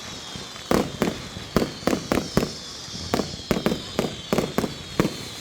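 Fireworks exploding in a rapid, irregular string of sharp bangs, about a dozen in five seconds, over a faint high whistle that slowly falls in pitch.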